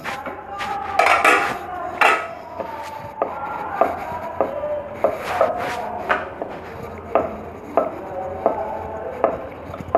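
Ridged wooden rolling pin rolling dough thin on a wooden board, knocking against the board about a dozen times at irregular intervals, with a rubbing sound between the knocks.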